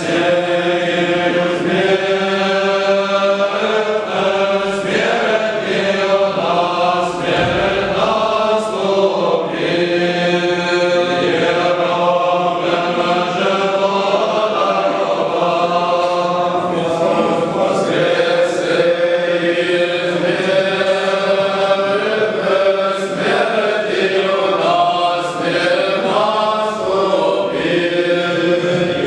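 An unaccompanied choir sings Orthodox liturgical chant in harmony, several voices moving together in long held phrases without a break.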